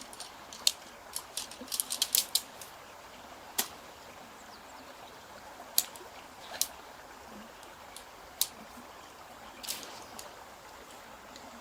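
Irregular sharp clicks and light taps: a quick cluster in the first two and a half seconds, then single ones a few seconds apart.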